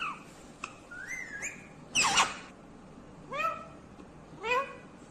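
Green ringneck parakeet calling: a rising whistle about a second in, a louder harsh call about two seconds in, then two shorter calls.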